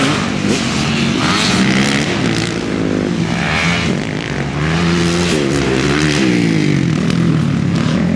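Dirt bike engines revving on a motocross track, the pitch rising and falling repeatedly with the throttle as the bikes ride the jumps. More than one engine is heard at once.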